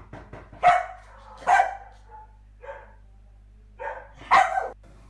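A dog barking about five times, in short separate barks with pauses between, the loudest just under a second in, at about one and a half seconds and near the end. A few light taps come just before the first bark.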